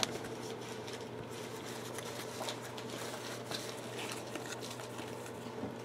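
Trading cards being slid off a hand-held stack one by one, a faint soft rustle and light clicking of glossy card stock, over a steady low hum. A short tap at the start as a stack is set down.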